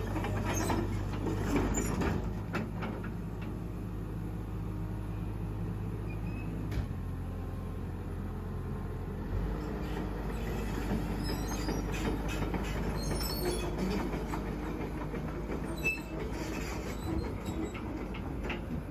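CAT 312C excavator's diesel engine running steadily, with scattered metallic clanks and clicks from the machine.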